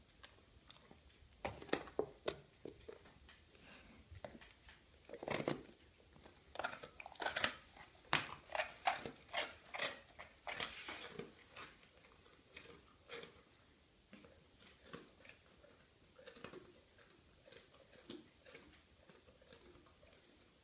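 A Cane Corso chewing a bread roll: irregular crunching bites, busiest and loudest in the middle, sparser and fainter toward the end.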